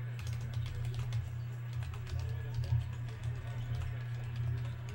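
Scattered light clicks of typing on a computer keyboard, over a steady low hum and faint background music.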